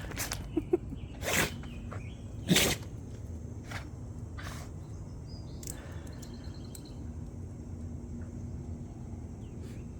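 A dog's sneezing fit: two sharp sneezes about a second apart, a little over a second in, with a few fainter short sneezes around them. The fit is one that the owner wonders comes from something she inhaled, such as an ant.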